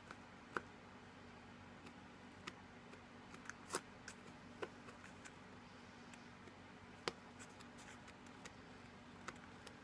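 Faint, scattered small clicks and light scratching of hand work on paper as loose fibres and folded-over bits are cleaned off the edge of an old book's flyleaf. A low steady hum runs underneath.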